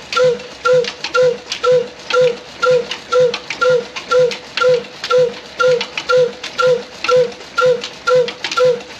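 Old single-cylinder 'black' desi diesel engine running with a slow, perfectly even exhaust beat, about two firings a second, each beat a loud pop with a ringing note.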